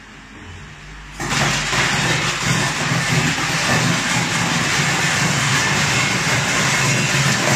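Raisin colour sorting machine switched on from its touchscreen: about a second in, a loud steady mechanical running noise with a low hum starts suddenly and holds, as the feeder and chute begin to run.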